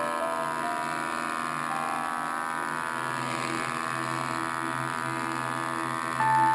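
Grizzly G5851 24-inch planer running under load as a board feeds through its cutterhead, a steady machine whine and hum whose pitch shifts a few times, with a short louder surge near the end.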